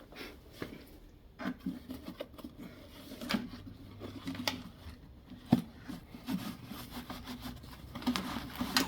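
Contents of a motorcycle toolbox being handled and shifted about: scattered knocks and clicks with some rustling, one sharper knock about five and a half seconds in.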